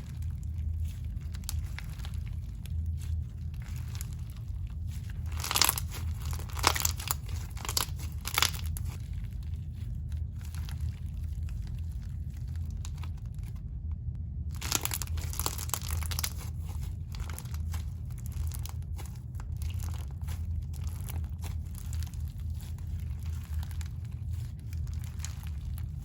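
Crunchy white-glue slime packed with sharp acrylic silica sand beads being pressed and squished by hand, the beads giving a dense crackling crunch. The crunch is loudest in a few squeezes about six to eight seconds in and cuts out briefly midway.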